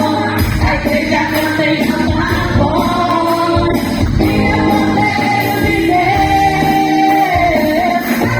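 Women's choir singing a gospel song over instrumental backing, with long held notes and a steady beat.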